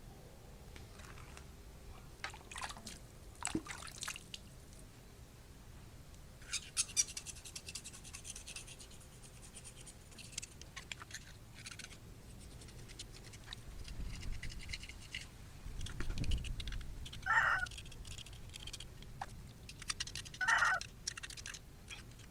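Knife blade scraping old paint off a bike part, in irregular scratchy strokes with pauses between. The longest run of scraping comes in the middle, and short, louder strokes come near the end.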